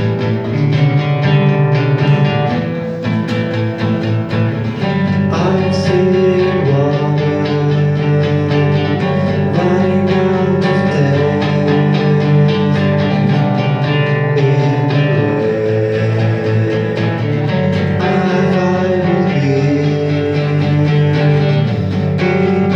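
Guitar music played live, plucked notes in a steady rhythm carrying a song.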